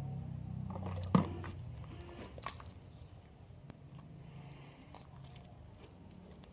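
Slime mixture being worked by hand after water is added: soft wet squishing with scattered small clicks, and one sharp click just over a second in.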